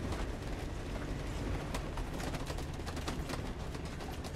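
Motorhome cab noise while driving: a steady low engine rumble and tyre noise on a wet road, with many small ticks and rattles throughout.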